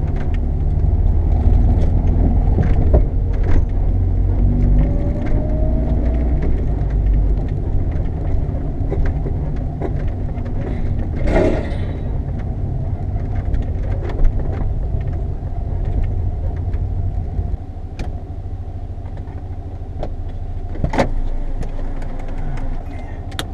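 Nissan 240SX driving, heard from inside the cabin: a steady low engine and exhaust drone through its Top Speed catback with silencer, over road noise. A few sharp knocks come through during the drive.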